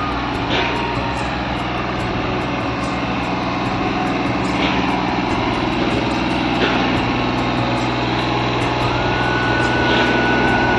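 Farm machinery engines running steadily at a crop-sprayer demonstration: the tractors and self-propelled sprayer on show. The noise grows slightly louder, and a thin steady whine comes in near the end.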